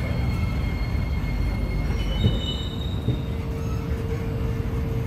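Interior sound of an SMRT C751B metro train: a steady low rumble under several steady high-pitched whines and squeals. The whines change about two seconds in, and a lower steady hum joins about three seconds in.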